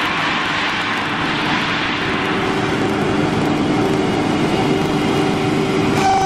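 Woodworking CNC router running: a steady, noisy machine sound with a low hum. Just before the end a strong, steady high whine sets in.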